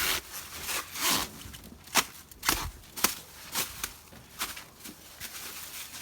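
Cardboard cases of fireworks being handled and set down: irregular knocks and scuffs, roughly one or two a second, with footsteps.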